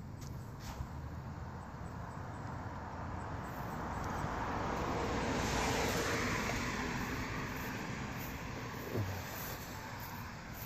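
A vehicle passing by at a distance: a steady rushing noise that swells over several seconds, is loudest about six seconds in, then fades away.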